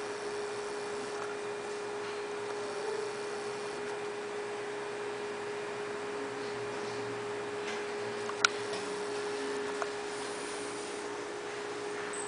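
Steady electrical hum of running aquarium equipment, one even tone over a faint hiss, with a sharp click about two-thirds of the way through and a smaller one just after.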